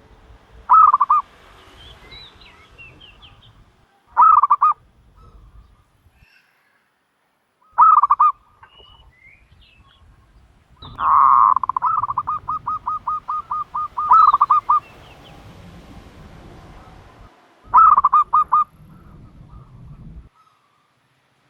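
Turtle dove calling loudly in quick bursts of rapid, pulsed notes. There are four short bursts, and near the middle a longer run of pulses lasting about four seconds.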